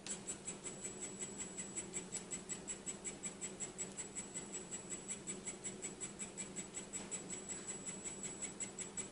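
Handheld 3D printing pen's filament feed motor running while extruding plastic: an even, rapid clicking, about five clicks a second, over a low steady hum.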